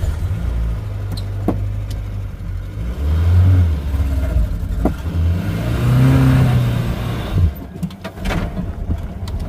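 Maruti Gypsy engine running just after starting, rising in pitch about six seconds in as it accelerates, then settling. A few sharp knocks or rattles sound over it.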